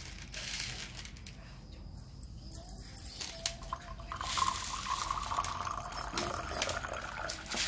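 Water poured in a thin stream into the aluminium boiler of a Bialetti Alpina moka pot, starting a few seconds in. It fills the chamber toward the 150 ml mark for three cups, with a tone that rises slightly as the water level climbs.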